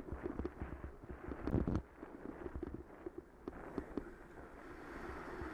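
Bicycle rattling and knocking as it rides over rough, patched tarmac, with irregular knocks and a louder cluster of knocks about one and a half seconds in. A steadier rushing noise builds near the end.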